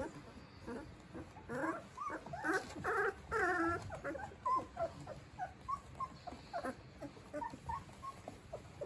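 A litter of 15-day-old golden retriever puppies whimpering and squeaking: many short, high, wavering calls overlapping, most crowded and loudest about two to four seconds in.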